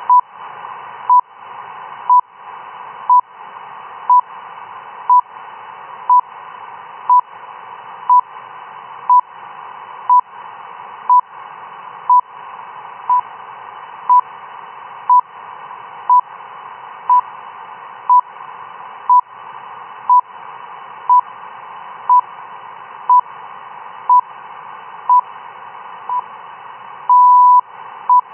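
Shortwave time signal from RWM, the Russian standard time station, received in CW mode as a 1 kHz beep: one short pulse every second over steady receiver hiss. Near the end comes a longer tone, RWM's minute marker.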